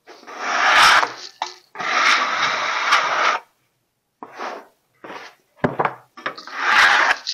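A flat steel scraper dragged across freshly sawn pine boards, scraping the sawdust off their faces before kiln drying. There are two long scraping strokes, then shorter ones, a sharp knock about two-thirds in, and another long stroke near the end.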